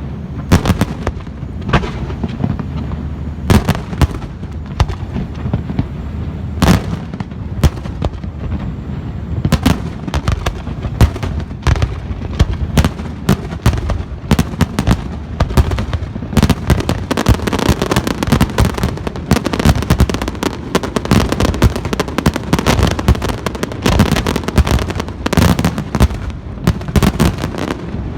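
Aerial fireworks bursting: separate loud bangs a second or so apart at first, thickening about halfway into a dense, rapid barrage of bangs and crackles that stops near the end.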